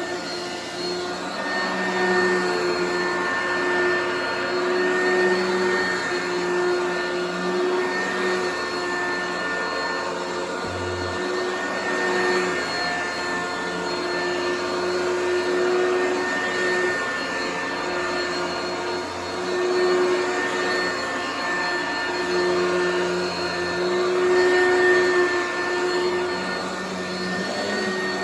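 Vacuum cleaner running steadily with a constant motor whine, its loudness rising and falling a little. There is a brief low bump about eleven seconds in.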